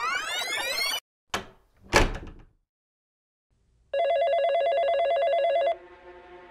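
A warbling telephone ring, one ring lasting a little under two seconds, starting about four seconds in. Before it, a rising whistle-like glide over the first second and two short knocks.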